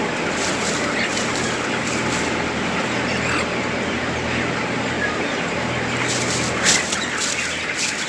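A crowded flock of chickens in a poultry house, wings flapping and birds clucking over a steady low hum, with sharper flurries of flapping near the end.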